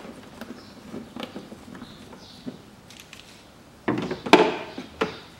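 Plastic air intake duct being undone and worked loose from the air filter housing by hand: light clicks and taps, then a louder rustling, knocking clatter about four seconds in and a shorter one about a second later.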